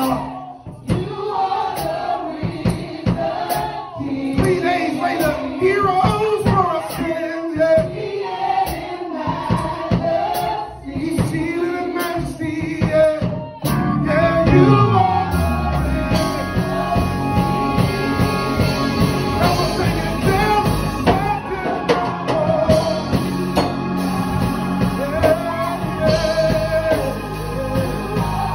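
Man singing a gospel song into a microphone, with sharp rhythmic percussive hits under his voice at first. About halfway through, instrumental accompaniment comes in: a low bass note slides down, then sustained chords carry on beneath the singing.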